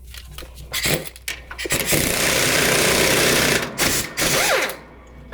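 Power tool, likely an impact wrench or air tool, running in one burst of about two seconds, with knocks and clatter before and after it.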